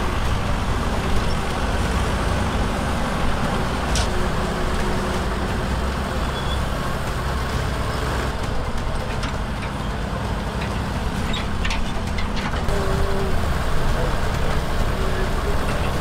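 Engine of an old cable-operated mechanical excavator running steadily, with a few sharp metallic clicks.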